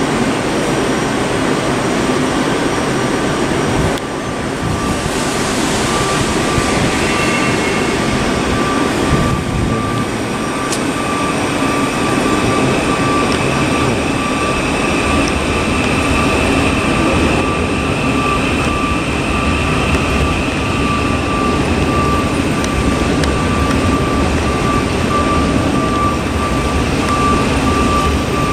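Electric multiple-unit trains at a station platform: a steady rumbling hum with a high, even whine from the trains' electrical equipment, joined about ten seconds in by a second, higher whine. The sound changes abruptly twice early on, about four and ten seconds in.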